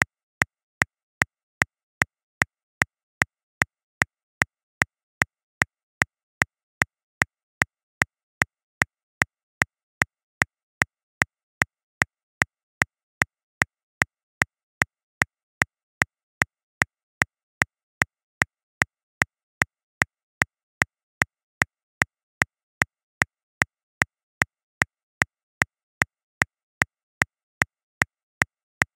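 Metronome clicking steadily at 150 beats per minute, about two and a half clicks a second, every click the same with no accented beat.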